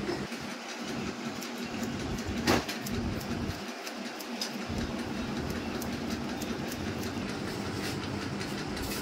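Barber's shears snipping repeatedly, cutting hair over a comb: a string of short, crisp clicks, with one sharper click about two and a half seconds in, over a steady low hum.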